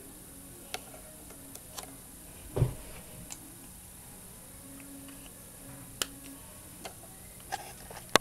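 Scattered clicks and taps with one louder, duller thump about two and a half seconds in, as the marker and paper are handled once the drawing is finished.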